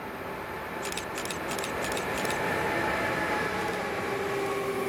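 A freight train hauled by two electric locomotives, a Siemens Vectron leading and a Class 189 behind, approaches and passes close by, its rail and running noise growing louder, with a steady whine in it. A quick run of sharp high ticks comes about a second in.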